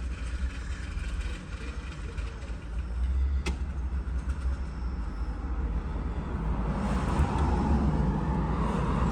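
Steady low rumble of vehicle noise that swells towards the end, with one sharp click about three and a half seconds in.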